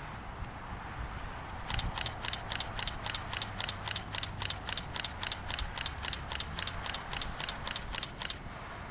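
A camera shutter firing in a continuous burst, a steady run of sharp clicks at about four a second that starts a couple of seconds in and stops shortly before the end.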